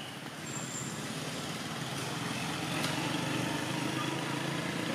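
Steady low rumble of a motor vehicle's engine, growing slightly louder as it goes on.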